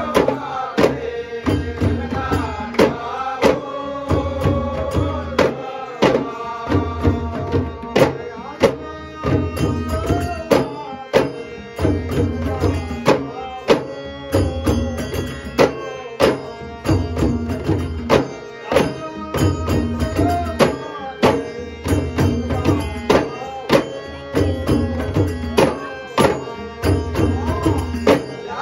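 Ghumat clay-pot drums beaten together by a group in a steady, driving rhythm. Over them a man sings a traditional Konkan Shimga song in a strong voice.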